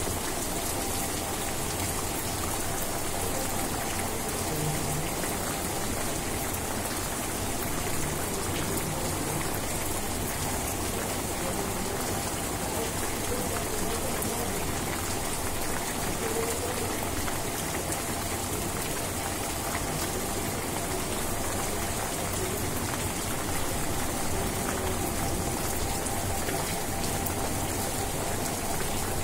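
Steady rainfall, an even hiss of drops pattering on grass and ground that keeps the same strength throughout.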